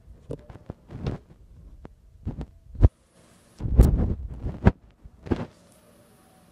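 Irregular knocks, bumps and rubbing of a handheld phone or camera being handled right at the microphone. The loudest bump comes a little before the middle, followed by a cluster of thumps just after it. A faint high hiss sets in partway through.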